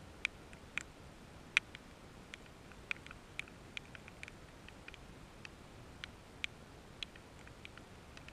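Light rain: scattered raindrops tapping on a hard surface close to the microphone, irregular sharp ticks about one to three a second over a faint steady hiss.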